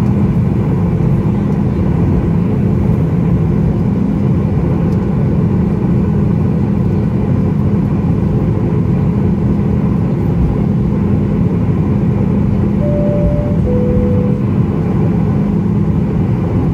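Boeing 737 MAX 8 taxiing, heard from inside the cabin: a steady rumble and hum from its CFM LEAP-1B engines at taxi power and the rolling wheels. Two short tones, the second lower, sound about thirteen seconds in.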